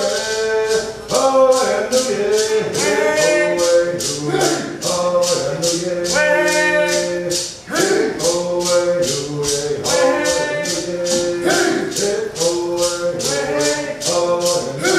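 Cherokee social dance song: voices singing over a rattle shaken in a steady beat of about three shakes a second.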